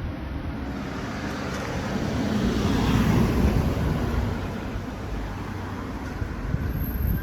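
A road vehicle passing: a steady rush that grows louder to a peak about three seconds in, then fades away.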